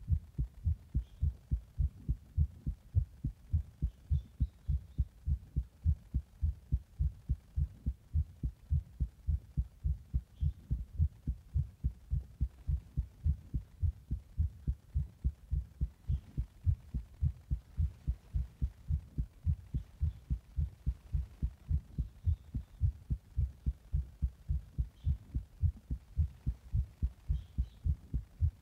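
Human heartbeat recorded against the chest: steady, regular lub-dub thumps, the heart of someone who has just drunk a Monster energy drink in a hot bath.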